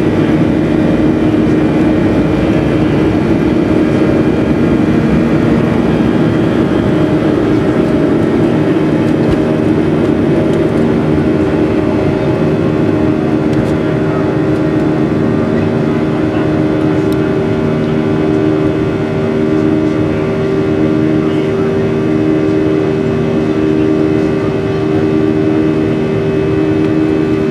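Boeing 737-700's CFM56-7B turbofan engines running at takeoff thrust, heard inside the cabin beside the wing through the takeoff roll, liftoff and climb-out: a loud, steady rush with several droning tones. From about two-thirds of the way in, one of the drones pulses in a slow, even beat.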